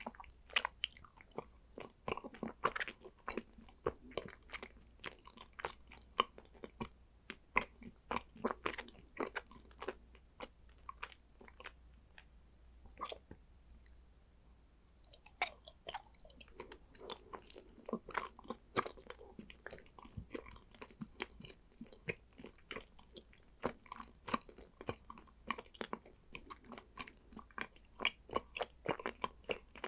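Close-miked chewing and biting of condensed-milk chocolate: a steady run of crisp snaps and wet mouth clicks. About halfway through it goes quiet for a few seconds, then resumes with a loud sharp snap.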